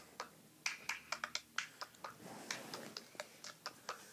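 Cup-game rhythm: hand claps and a cup tapped and knocked on a tabletop, sharp taps several a second in a repeating pattern.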